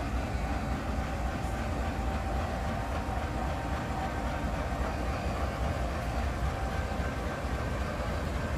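Diesel locomotive running steadily: a low, even rumble with a thin steady whine over it.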